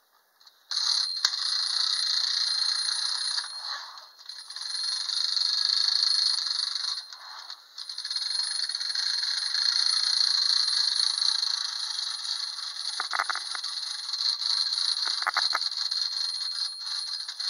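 Wind-up snorkel fire engine toy running on its clockwork spring: a continuous rapid rattle from its bell and motor, dipping briefly twice.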